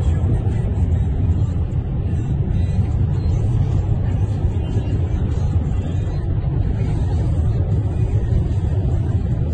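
Steady low rumble of vehicle engines and road noise heard from inside a car's cabin, alongside a column of armoured military vehicles on the road.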